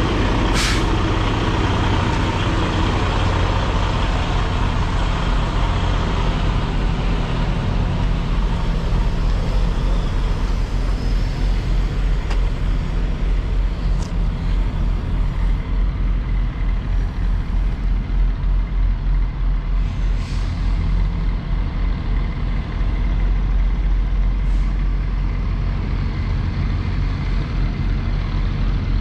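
Semi truck's diesel engine running steadily at low speed while backing. There is a short air hiss about a second in and a few fainter ones later.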